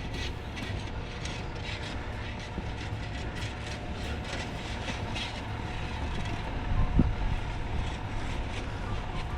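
Footsteps crunching in fresh snow at a walking pace, about two steps a second, over a steady low rumble, with one low thump near the end.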